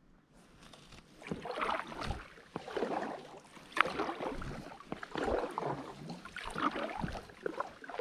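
Kayak paddle blades dipping and pulling through water in a steady rhythm, about six strokes starting a second in. There is one sharp knock near the middle.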